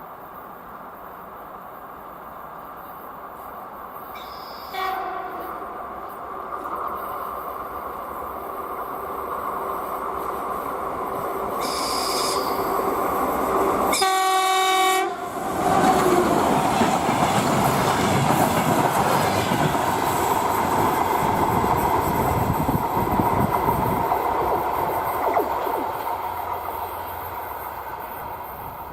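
A DR1AM diesel multiple unit sounds its horn briefly about five seconds in and again loudly around fourteen seconds in. It then passes at speed with a loud rushing rumble that fades near the end.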